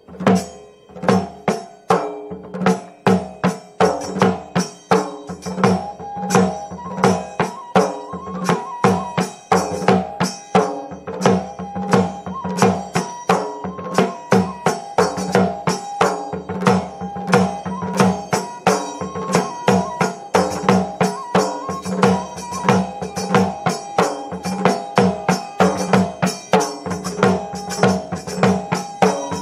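Assamese folk dance music: dhol drums beaten in a quick, steady rhythm of about three to four strokes a second, with a melody line of held notes above them.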